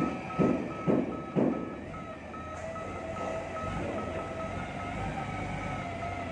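Reversing alarm of a new Mitsubishi 3-ton forklift beeping evenly at about three beeps a second over its running engine as it is manoeuvred off the container. Three heavy clunks come about half a second apart near the start.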